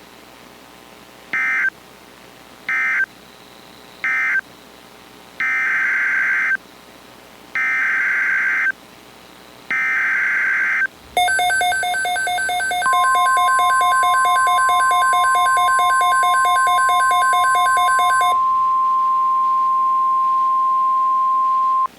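Emergency Alert System (SAME) digital data bursts: three short end-of-message bursts, then three longer header bursts, each a buzzy warble. A rapidly pulsing alert tone follows. About two seconds later a steady single tone, the NOAA Weather Radio 1050 Hz warning tone, joins it and keeps sounding after the pulsing stops.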